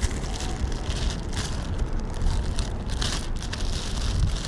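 Gusty wind buffeting the microphone, a low uneven rumble with faint crackling on top.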